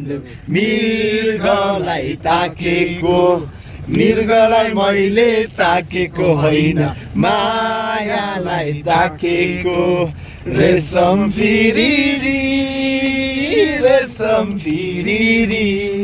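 A voice singing in a chant-like style, holding long wavering notes with short breaks between phrases, one long held note near the end.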